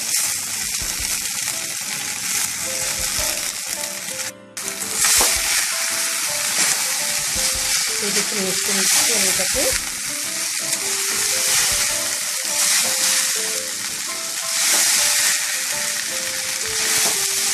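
Boiled Maggi noodles and chopped vegetables sizzling in a pan over a low gas flame as a flat metal spatula stirs them through, a steady frying hiss. The hiss cuts out briefly about four seconds in.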